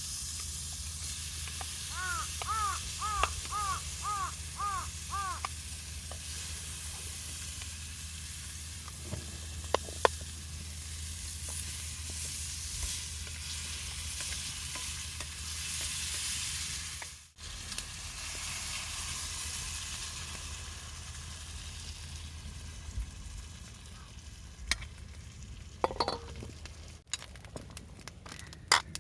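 Food sizzling and frying in a pan over a campfire, a steady hiss with a few light clicks of utensils. A bird calls a quick run of about eight notes a couple of seconds in.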